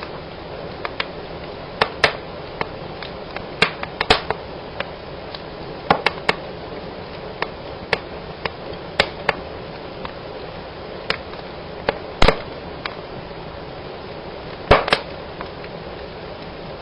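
Wood fire burning in a fireplace: a steady hiss of flame with irregular sharp cracks and snaps, the loudest about twelve seconds in and a quick pair near the end.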